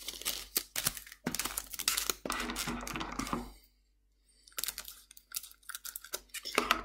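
Crinkling and rustling of a foil trading-card booster pack and its cards being handled, then after a brief pause, scissors snipping open the top of a new foil booster pack, with clicks and crinkling.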